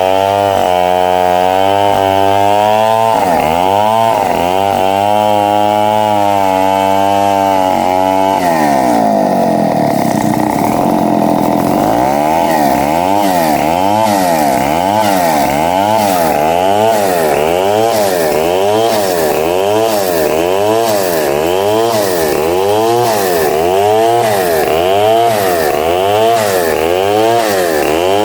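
Vertical bandsaw running and cutting timber: a loud mechanical whine whose pitch wavers up and down in a regular cycle of about once a second, changing its pattern about a third of the way through.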